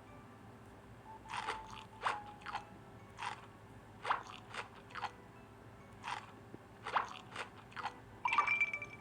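Close-up eating sounds: crunchy food being bitten and chewed, a string of short, sharp crunches about every half second, with a quicker flurry near the end.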